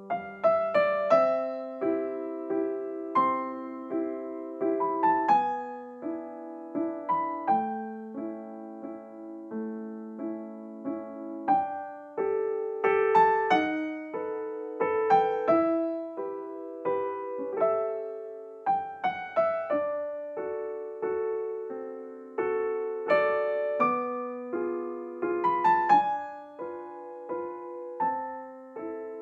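Slow, gentle solo piano music: single notes and soft chords struck one after another, each ringing and fading.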